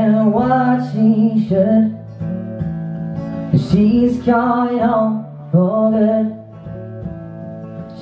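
Man singing with his own strummed acoustic guitar in a live solo performance. The voice comes in sung phrases with short breaks, and near the end it pauses while the guitar carries on alone.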